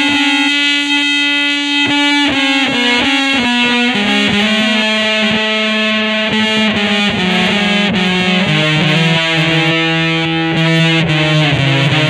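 Electric guitar through a Peavey Vypyr VIP modelling amp, with distortion and effects, playing long held notes that change every second or so. Near the end the notes step down lower.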